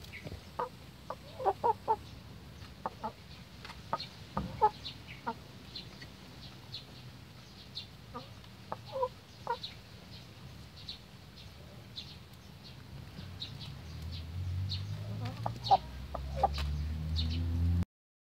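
A flock of chickens clucking, with short scattered clucks and calls throughout. A low hum builds over the last few seconds.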